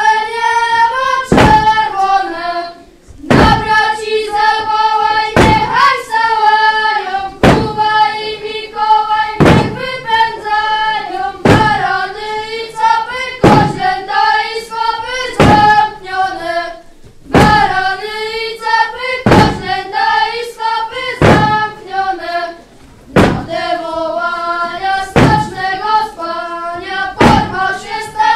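A group of children singing a carol together in unison, in phrases with short breaks between them. Loud wooden thuds land about every two seconds as their staffs strike the wooden stage floor in time with the song.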